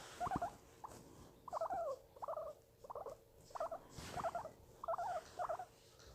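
Guinea pig squeaking in a run of short, repeated calls, about two a second.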